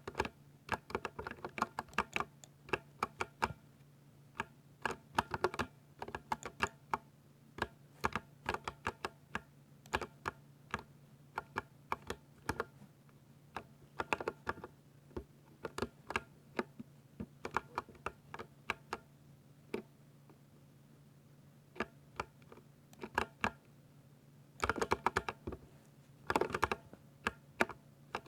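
Typing on a mechanical keyboard: a steady stream of sharp, irregular key clacks, with a short lull about two-thirds of the way through and a fast flurry of keystrokes near the end. A faint steady hum sits under the typing.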